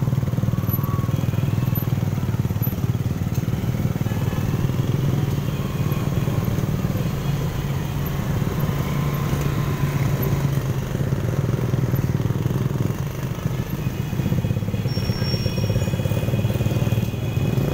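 Motorcycle engines running steadily as a group of motorcycles rides slowly through street traffic, heard from one of the moving bikes.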